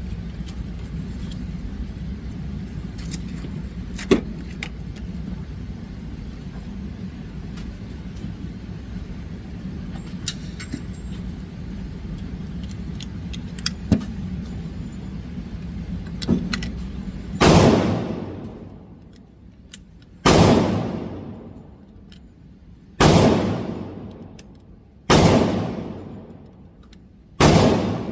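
Five gunshots fired about two and a half seconds apart in the second half, each with a long echoing decay, over a steady low hum. Two fainter sharp reports come earlier, about 4 and 14 seconds in.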